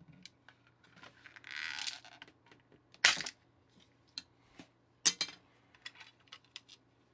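Plastic grip panel being pried off a toy cap gun: a short scraping creak about a second in, then a sharp snap about three seconds in as the panel comes free, and another sharp click about two seconds later, with light plastic ticks between.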